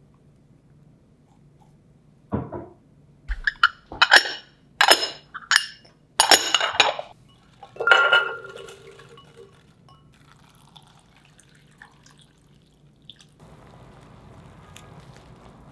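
Dishes and glassware clinking and being set down on a kitchen counter, a run of sharp knocks with one that rings on briefly. Near the end a steady faint hiss begins.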